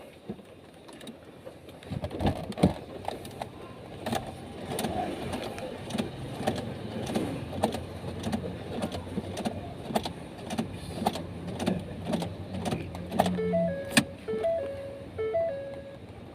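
Irregular clicks from the ignition key of a 2015 Ford EcoSport being switched on and off, the car's manual remote-programming routine, over a low steady hum. Near the end a short repeating pattern of electronic tones begins.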